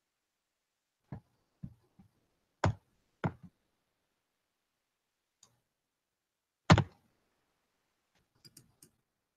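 Scattered sharp clicks and knocks close to the microphone from a computer mouse and desk handling, a handful in the first few seconds. A louder knock comes about two-thirds of the way in, and a few faint clicks follow near the end.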